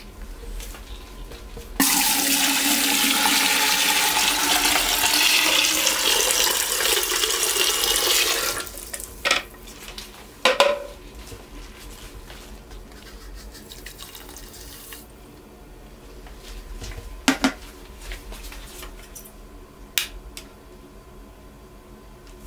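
Water running into a container to make up the cleaning solution. It starts about two seconds in and stops abruptly after about six and a half seconds. A few short knocks follow.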